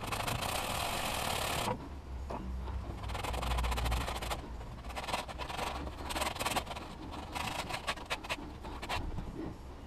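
Hands working at the metal thermostat water neck on a flathead V8: a second and a half of rustling, then a run of small scrapes, taps and clicks as the neck is worked loose.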